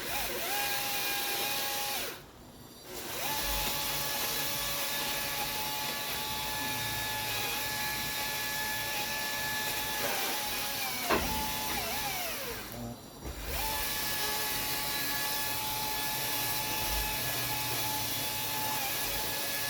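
Electric motor of a tree-trimming power tool running with a steady whine, switched off and on in bursts: it stops briefly about 2 s in and again near 13 s, winds down with a falling pitch around 10 s and at the end. A single sharp knock sounds about 11 s in.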